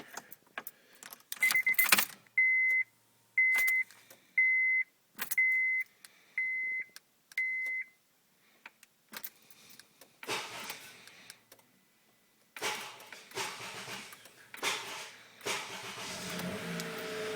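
Car keys jangling and clicking in a 2010 Honda Accord's ignition, with six evenly spaced warning-chime beeps about a second apart. Near the end the engine catches and starts running after attempts where turning the key gave only a click under the dash: an intermittent no-start fault the dealer has not found.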